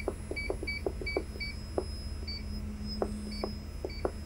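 Teach pendant of an OTC DAIHEN FD-series welding robot beeping as its keys are pressed while jogging the robot: about nine short high beeps at uneven spacing, six in quick succession in the first second and a half and three more spread out later, with light clicks of the keys, over a steady low hum.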